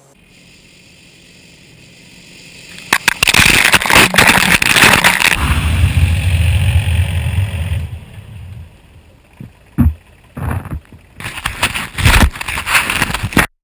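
John Deere compact tractor's diesel engine running as the tractor drives up, faint at first, then loud with a deep rumble once it reaches the microphone. After that come knocks and rubbing from the camera being picked up and handled, and the sound cuts off suddenly near the end.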